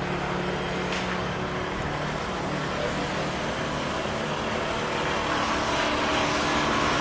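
Small motorcycle engine running steadily while riding, with road and wind noise. It gets a little louder near the end.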